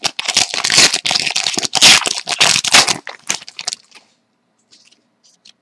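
Trading cards and their pack wrapping being handled by hand: quick rustling for about three seconds that dies away to near quiet, with a few faint ticks near the end.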